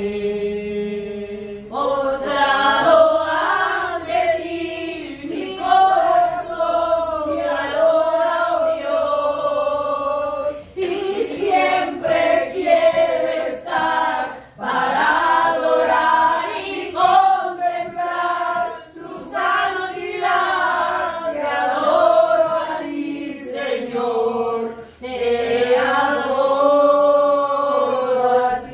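A small group of mostly women's voices singing a Spanish worship song together, unaccompanied. The song comes in long phrases with brief pauses for breath between them.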